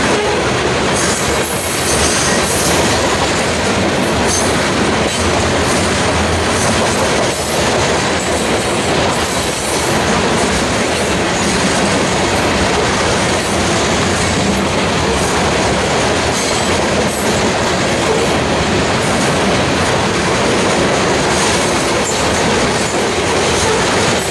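Freight train of covered hopper cars rolling steadily past, steel wheels clattering over the rails.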